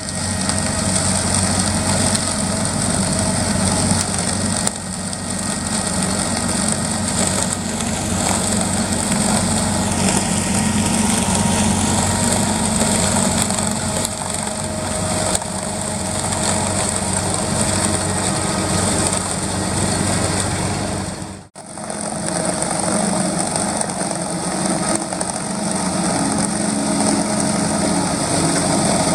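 Potato harvesting machinery at work in the field: diesel engines running steadily under the clatter of the harvesting gear. The sound briefly drops out about two thirds of the way through, then resumes.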